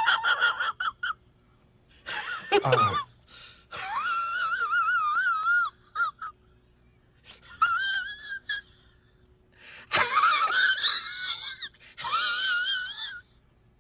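A high, wavering wail in five drawn-out phrases with strong vibrato, separated by short gaps.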